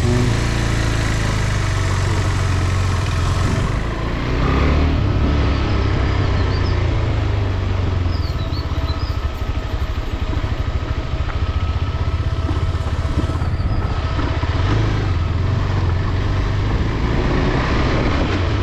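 Motorcycle engine running steadily under way, a continuous low rumble with a brief dip about four seconds in.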